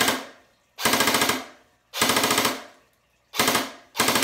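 Snow Wolf airsoft Barrett electric rifle firing on full auto from its stock gearbox, in five short bursts of rapid shots each under a second long, the last still running at the end.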